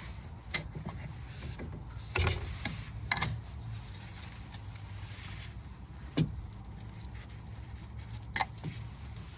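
A handful of separate sharp clicks and knocks of plastic and metal parts being handled, as the door speaker is worked free and its wire connector unplugged, over a steady low hum.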